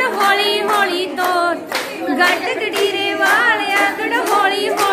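Group of women singing a Punjabi folk song together, with hand clapping throughout.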